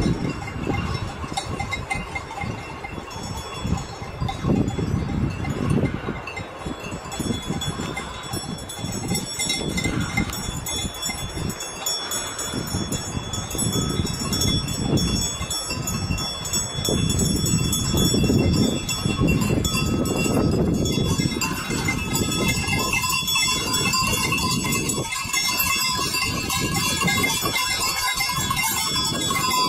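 Bells on a herd of Valais Blackneck goats ringing and jangling as the goats move around close by. The ringing grows fuller and thicker in the last third, as more bells sound together. Low rumbling noise runs underneath during the first part.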